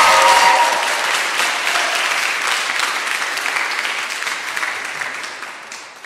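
Audience applauding, with a cheering voice over the clapping at the start; the applause dies away near the end.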